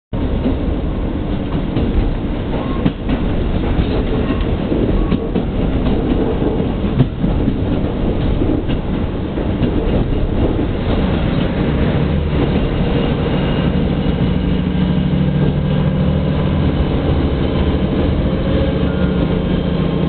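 Diesel railcar running along the line, heard from inside the car: a steady rumble of wheels on rail with occasional sharp clicks of rail joints. From about halfway the diesel engine's steady drone comes up under it.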